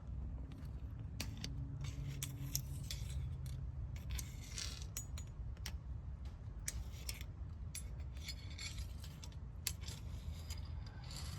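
Scattered light metal clicks and clinks as a loose pushrod is worked free and drawn out of the rebuilt Ford 460 V8's valvetrain; the pushrod turns out to be bent. A low steady hum sits underneath.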